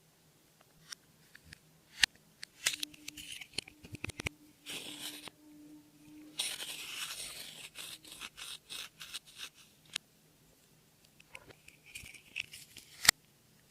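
Slime being mixed and squished by hand: irregular sticky clicks, crackles and squelches, denser in two runs through the middle, with a sharp click near the end.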